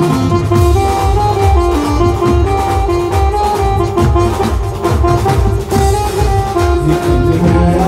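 Live band playing a Gujarati dakla folk tune: a keyboard carries a sustained, stepwise melody over a steady drum beat.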